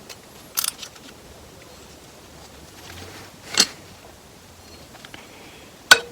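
Transmission clutch plates and steel plates being handled and set down on a bench: a few short clicks a little over half a second in, a louder knock about three and a half seconds in, and a sharp click near the end.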